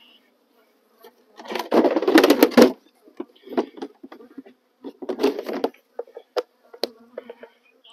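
Honey bees buzzing around the open hives, a steady hum with several louder passes of bees flying close to the microphone. Two short knocks near the end.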